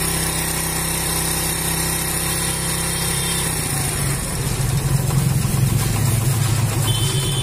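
Small motorcycle engine idling while its carburettor's air screw is turned to tune the slow idle, which had been stalling. About halfway through, the steady idle note changes and picks up a little as the adjustment takes effect.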